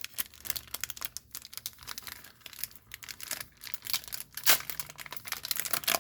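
Crinkling and rustling of Panini sticker packs and stickers being handled: a dense run of small crackles, with a louder burst about four and a half seconds in.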